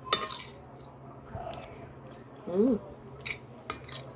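Close eating sounds: a short, loud slurp as a forkful of spaghetti is sucked in, then chewing. About two and a half seconds in there is a brief hummed "mm" that rises and falls in pitch, and near the end a few light clicks.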